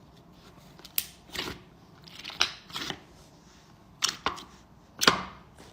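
Slime being squeezed and poked by hand, giving a string of sharp clicking pops and short crackles, about seven in all, the sharpest about a second in and again near the end.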